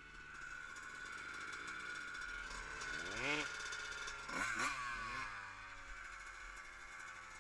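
Dirt bike engine revving up and back down, then a few quick blips, after which the pitch falls slowly back to a steady run.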